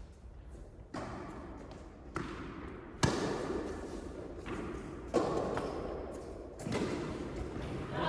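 Tennis balls struck by rackets and bouncing on an indoor court during a rally: about six sharp hits, each ringing on in the hall, the loudest about three seconds in.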